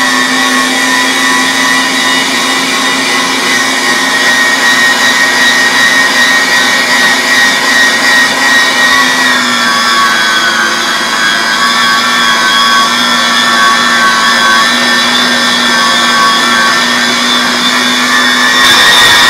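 Cabela's heavy-duty electric meat grinder running steadily as it grinds elk meat, a constant motor hum whose pitch dips slightly about halfway through as the load changes.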